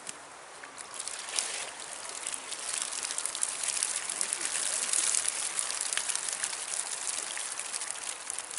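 Water running and dripping out of a mesh fishing keepnet as it is hauled up out of the water, a pattering trickle that starts about a second in and is heaviest around the middle.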